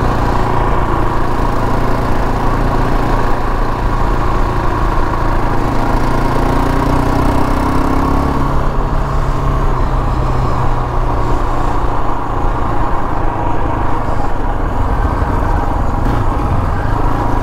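KTM 525 XC quad's single-cylinder four-stroke engine running steadily while the quad is ridden along at an even pace.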